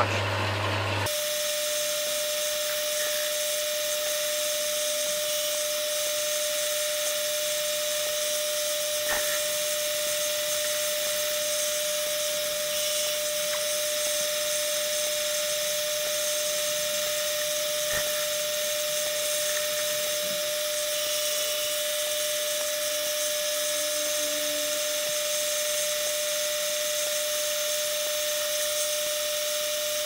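Sieg C6 metal lathe running steadily, turning a 30-degree taper on an aluminium bar: an even whine over a hiss, with a couple of faint ticks.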